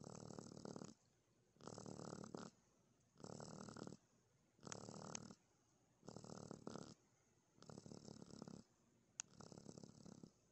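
Baby raccoon purring as she soothes herself to sleep. The purr comes as soft buzzy bursts just under a second long, about seven of them, one every second and a half or so.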